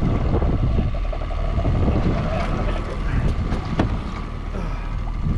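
Wind buffeting the microphone aboard a small fishing boat under way: a steady low rumble with a thin steady hum above it and a single sharp knock about four seconds in.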